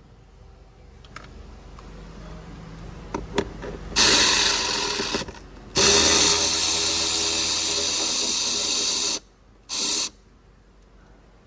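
A power tool runs in three bursts, a short one, a longer steady one of about three seconds and a brief last one, removing fasteners to take out the dash instrument cluster. A few light clicks come just before the first burst.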